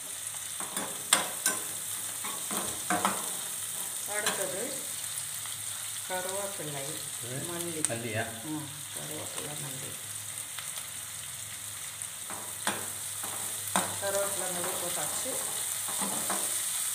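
Small onions and green chillies sizzling in hot oil in a nonstick kadai, stirred with a steel perforated spoon that clicks and scrapes against the pan now and then.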